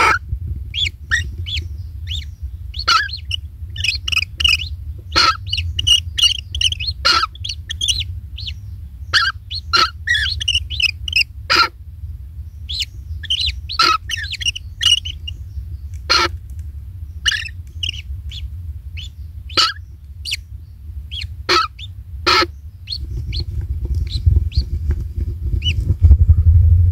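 Birds chirping: short, high calls come irregularly, sometimes in quick clusters, over a steady low rumble that grows louder near the end.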